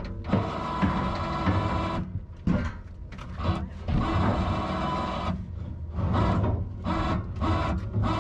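A winch running in short pulls, with steel scraping and knocking, as the new steel screen is dragged into place inside a wood grinder beside the hammermill rotor. The hum stops briefly a few times between pulls.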